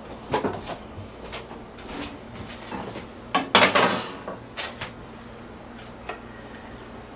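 Kitchen handling noises: light knocks and clatter of dishes and utensils, with one louder, longer clatter about three and a half seconds in.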